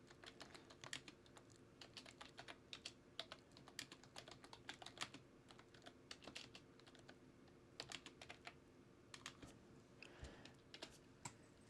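Faint typing on a computer keyboard: irregular key clicks throughout, over a faint steady low hum.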